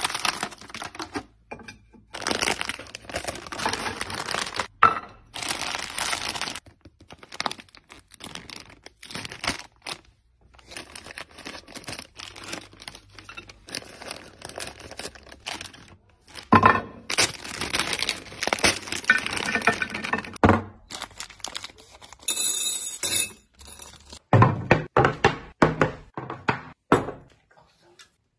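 Snack packaging being opened and handled by hand: plastic and foil wrappers crinkling and tearing, with many sharp taps and clicks, in a run of short bursts separated by brief pauses.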